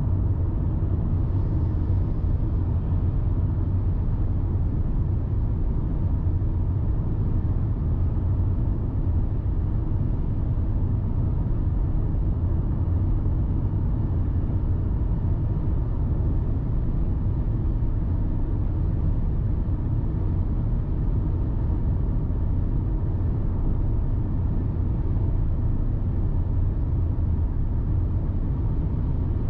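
Steady low rumble of a car driving at road speed: engine and tyre noise.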